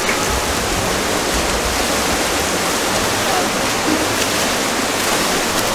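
Steady splashing and rushing of pool water churned by water polo players swimming and fighting for the ball.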